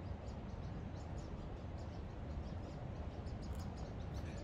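Wind rumbling on the microphone, with many short high-pitched chirps scattered through it.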